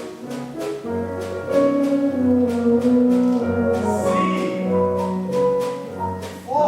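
Instrumental show-tune accompaniment playing a melody over a bass line with a steady beat.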